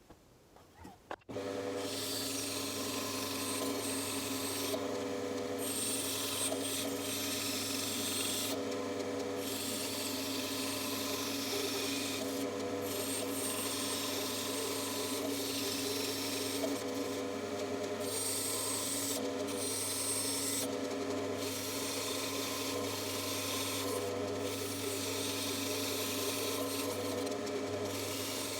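Bandsaw switched on about a second in, then running steadily with its blade cutting through wood; the cutting hiss breaks off briefly every few seconds while the motor hum carries on.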